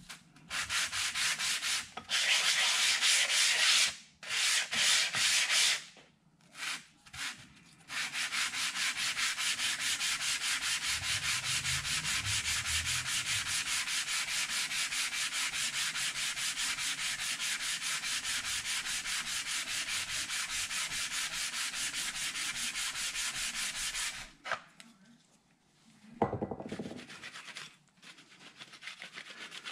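Ducati belt-drive engine oil pump cover being lapped back and forth on wet 400-grit emery paper over a flat tool-steel plate: a gritty rubbing, in short bouts at first, then a long run of fast, even strokes that stops a few seconds before the end. The lapping flattens the cover's worn, machine-marked underside.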